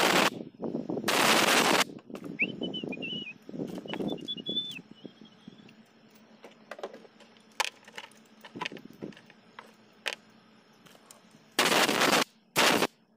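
A power wrench runs in short rattling bursts on the injector hold-down bolts of a Toyota 2KD diesel cylinder head. There are two bursts in the first two seconds and two more close together near the end.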